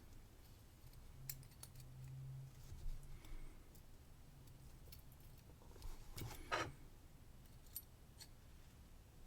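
Faint, scattered small metallic clicks and taps of lock pins, springs and a hand tool as a pin is worked sideways into an ERA padlock's pin chamber, with the clearest cluster of clicks about six seconds in.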